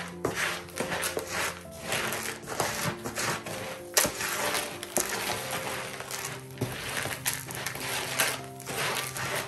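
Gritty succulent soil mix, dark soil with white grit, being stirred and scraped by gloved hands in a plastic tub: repeated scratchy rustling with small clicks of grit. Soft background music plays under it.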